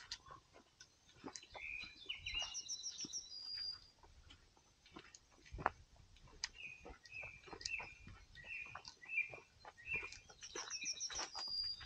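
A songbird singing in short phrases, one early and one near the end, with a run of short repeated notes between them. Under it come footsteps on a leaf-strewn dirt track, with one heavier step about halfway through.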